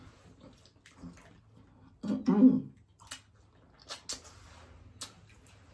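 Close-miked eating sounds of two people biting into and chewing shrimp boil food: wet lip smacks and mouth clicks, with a brief slurping hiss just after four seconds. A short burst of voice about two seconds in is the loudest sound.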